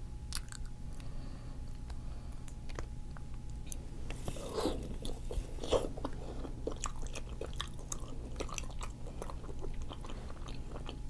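Close-miked chewing of cooked octopus head: a steady run of wet mouth clicks and smacks, with louder bites around the middle.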